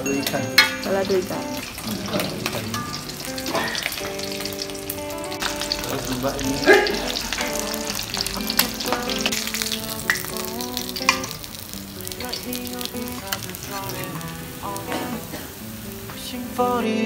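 Fish frying in hot oil in a pan, a continuous crackling sizzle, with occasional sharp knocks of a metal spatula stirring it.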